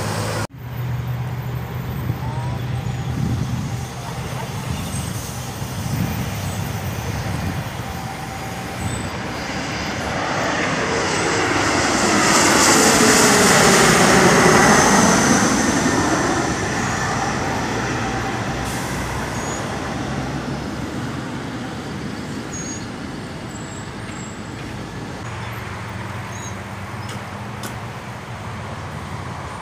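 A jet airliner passing low overhead: its engine noise swells over several seconds, peaks about 14 seconds in with a sweeping rise and fall in tone, then fades. Road traffic, with idling truck engines, runs underneath.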